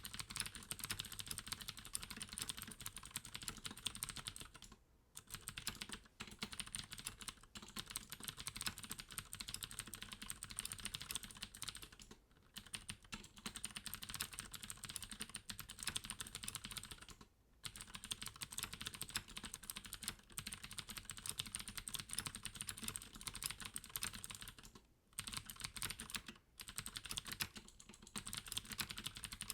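Steady fast typing on a Deck Hassium Pro mechanical keyboard with clicky Cherry MX Blue switches and added sound-absorbing foam, with a few brief pauses.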